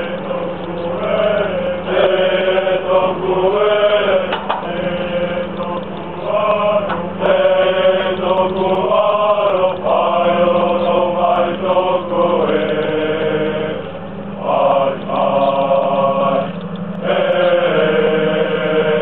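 A group of marines chanting a Polynesian song together in phrases, over a steady low hum.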